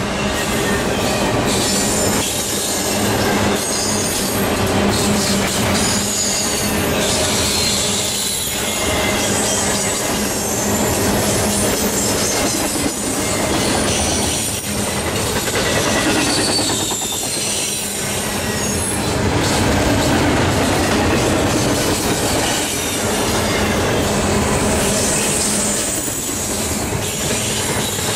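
Double-stack intermodal freight train rolling past on a curve: a steady rolling noise and clatter of the well cars, with wheel flanges squealing in high, wavering tones.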